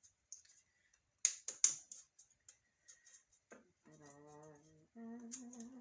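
Two sharp clicks of computer parts being handled, just over a second in, with faint ticking after them. Near the end comes a short hummed tone, about a second long.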